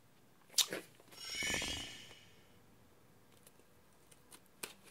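A vinyl LP's cardboard sleeve being handled as it is opened: a light knock, then a rustling scrape lasting about a second, followed by a few faint ticks.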